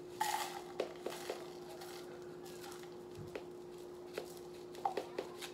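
Powdered pink lemonade drink mix poured from its container into a clear plastic cup: a short rustling pour near the start, then scattered light clicks and taps, over a steady faint hum.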